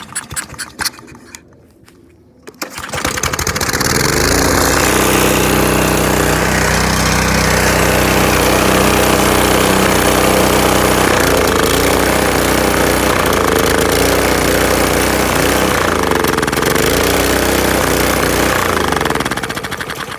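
Honda GC190 single-cylinder engine, fed a small dose of liquid ('juice'), picks up and runs loudly about three seconds in, its speed wavering and surging, then slows and dies near the end.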